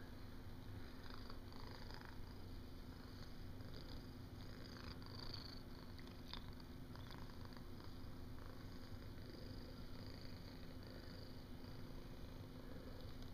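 A calico cat purring steadily, a soft low rumble, as it is stroked and scratched about the head.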